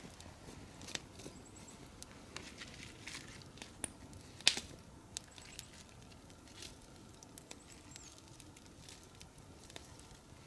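Wood campfire crackling with irregular sharp pops, one louder pop about four and a half seconds in, as sticks are tended in the fire. Light footsteps on the needle-covered forest floor near the start.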